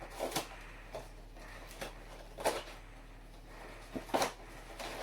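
A package being struggled with and opened by hand: a few sharp crackles and knocks, the loudest about two and a half seconds in and another near the end.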